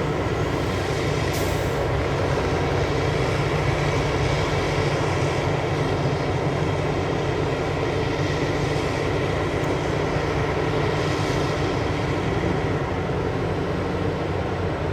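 Heavy mining equipment running steadily: the big diesel engines of the excavator and haul truck at work, with a brief hiss about a second and a half in.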